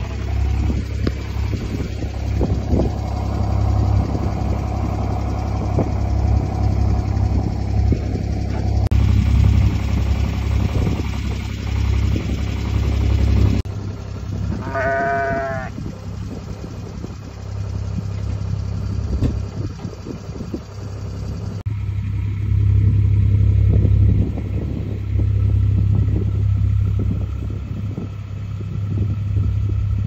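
Steady low rumble throughout, with a flock of sheep close by; about halfway through, one sheep bleats once for about a second.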